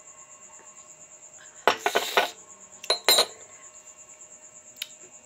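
Porcelain coffee cup, saucer and teaspoon clinking and knocking in a few short bursts, the loudest about two seconds in, over a cricket's steady, rapidly pulsing high trill.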